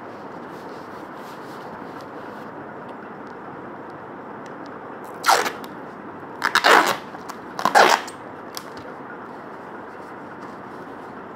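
Parcel packaging being torn and handled: three short, loud tearing sounds, about five, six and a half and eight seconds in, over a steady background noise.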